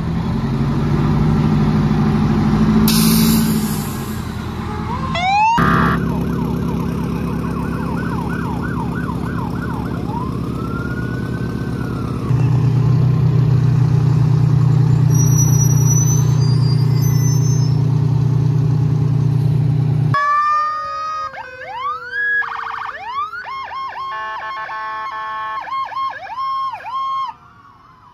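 Fire trucks passing one after another with their sirens sounding. Wailing sirens rise and fall over a steady low engine-and-horn drone, with a long low horn blast in the middle. Then several electronic sirens yelp and warble over one another.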